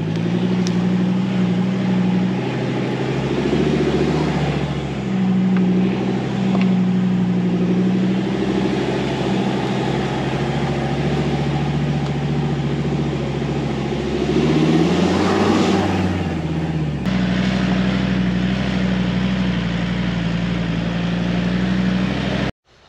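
Vehicle engine running under way, a steady drone; about fifteen seconds in the engine note rises as it revs, then drops back abruptly a second or so later.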